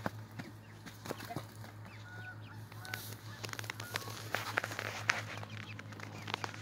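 Chickens in a wire-mesh run making short calls, with scuffling and quick knocks of feet on the dirt floor. Underneath is a steady low hum.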